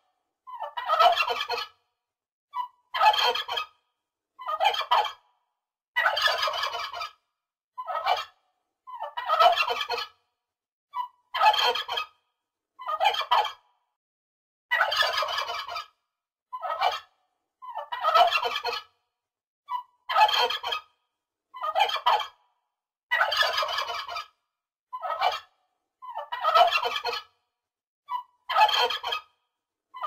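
Turkey gobbling over and over: about a dozen short rattling gobbles, one every second or two, with brief chirps between some of them and silence between calls.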